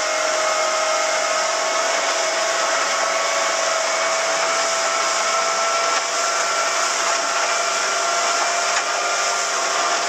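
Small motorboat's engine running steadily at a raised cruising throttle, a continuous whine over the rush of water and wind as the hull runs at speed.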